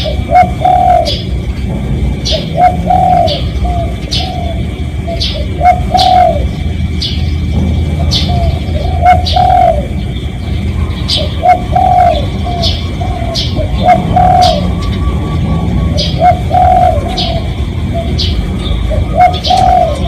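Spotted dove cooing: phrases of several soft, low notes repeated every two to three seconds. Short, sharp high chirps from another small bird come about once a second between them.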